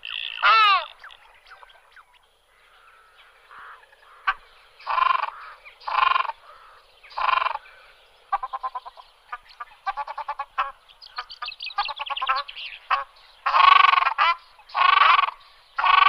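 Ruddy shelducks calling: after a quiet start, a run of short calls about once a second, then a spell of rapid, quieter chattering, and louder calls in quick succession near the end.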